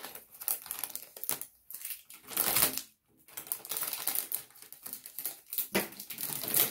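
Clear plastic wrapping crinkling and rustling as a new keyboard is handled and unwrapped, with irregular small clicks and a louder stretch of rustling about two and a half seconds in.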